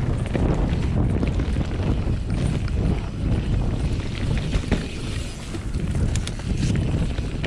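Specialized Enduro Expert 29 mountain bike rolling fast down a dirt trail covered in dry leaves: a steady rumble of tyres on dirt and wind buffeting the microphone, broken by scattered sharp clicks and rattles from the bike over bumps.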